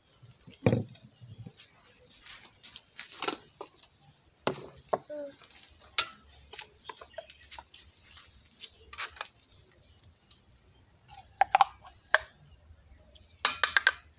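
Irregular knocks and clinks of a cooking utensil against a pot as melon is added to a soup and stirred in. There is a heavier thump about a second in and a quick run of clatter near the end.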